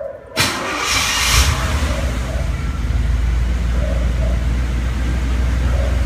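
Pontiac Firebird Trans Am engine being remote-started: it fires about half a second in with a brief rush of noise as it catches, then settles into a steady idle.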